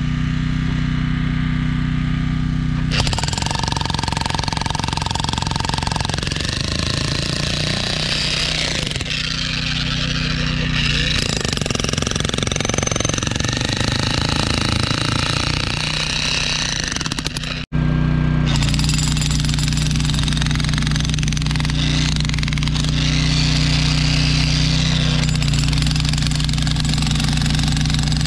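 Mophorn 3600 W electric demolition hammer running continuously, its chisel hammering rapidly into hard ground and concrete. The rattle turns harsher and noisier about three seconds in, then goes back to an even buzz after a sudden break about two-thirds of the way through.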